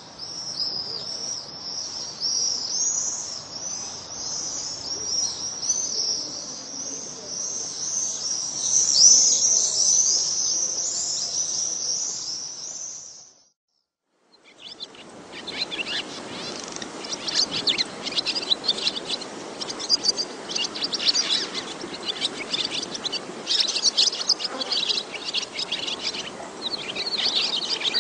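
Birds chirping and singing in a dense, continuous chorus. It cuts off at about 13 seconds, and after a second of silence a second bird recording starts, made of many short, sharp chirps.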